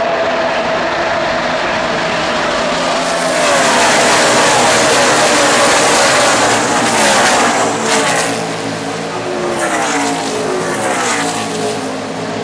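A field of NASCAR Truck Series race trucks with V8 engines passing at speed, many engines at once, their pitches sliding downward as each truck goes by. It is loudest about four to seven seconds in, with another wave of trucks passing around ten seconds in.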